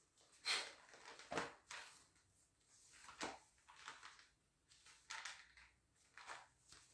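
Faint handling noises: about seven brief rustles and light knocks spread through, the loudest about half a second and a second and a half in.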